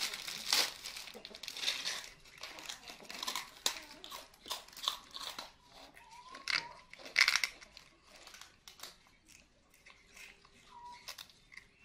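Crinkling and crunching of round cakes as two monkeys handle them and bite into them: a rapid irregular run of small crackles and crunches.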